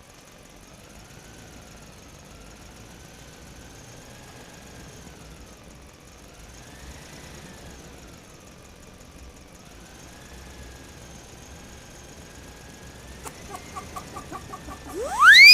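Quiet cartoon soundtrack of faint, slowly wavering tones. Near the end come a quick run of short pulses, about five a second, and then a loud whistle-like note that sweeps sharply up and slides slowly back down.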